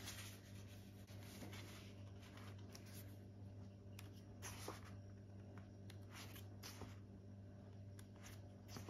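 Faint rustling and crinkling of a folded paper leaflet being handled and opened, in scattered short bursts over a steady low hum.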